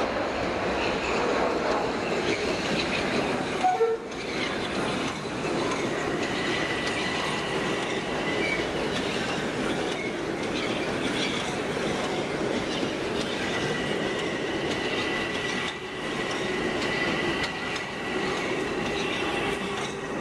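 Metro-North electric commuter train running past at speed: steady rumble and clatter of wheels on the rails, with a thin high squeal from the wheels that comes and goes. A short louder sound stands out about four seconds in.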